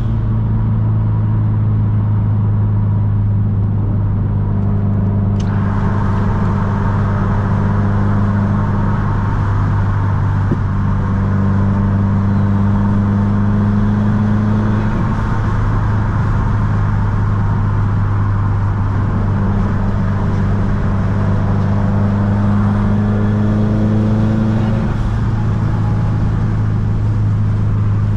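Subaru STI's turbocharged flat-four engine and exhaust droning at a steady cruise, its pitch holding nearly constant, with road and wind noise that grows louder about five seconds in.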